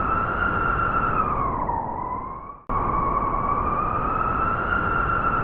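Blizzard wind howling, a whistling tone that slowly rises and falls over a rushing hiss; it cuts off abruptly a little past halfway and starts again the same way.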